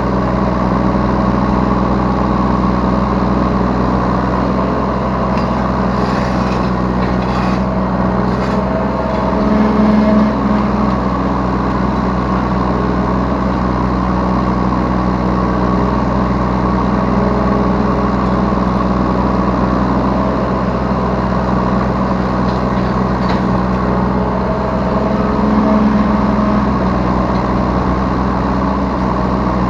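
Yanmar B3 Sigma mini excavator's diesel engine running steadily close up, its note swelling briefly under hydraulic load twice, about ten seconds in and again near the end. A few short clatters come about six to eight seconds in.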